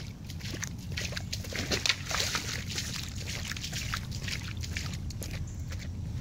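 Footsteps splashing through shallow floodwater on a paved path: an irregular run of slaps and sloshes, busiest about two seconds in, over a steady low rumble.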